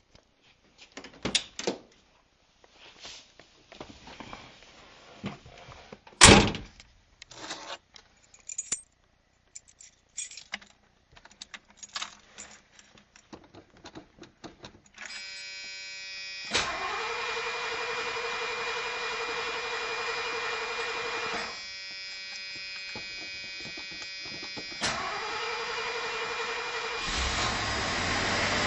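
Keys jingle and clink, with a loud thump. Then the 1981 Ford Granada's 4.2 V8 is cranked over by its starter for about five seconds while a steady warning tone sounds. It is cranked again a few seconds later and catches near the end, on a freshly fitted Motorcraft 7200 VV carburetor and new fuel line.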